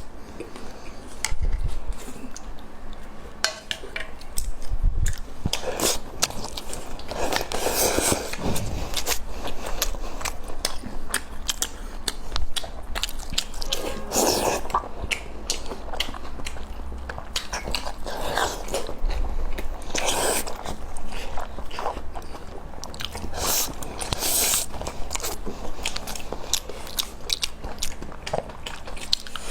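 A person eating close to the microphone: biting and chewing food with crunching and many small clicks, and louder bursts every few seconds.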